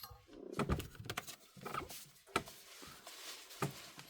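Small hand tools clicking and tapping against a phone's glass and frame, a string of sharp light clicks with faint scraping between them, as a pry tool is worked in to lift the display.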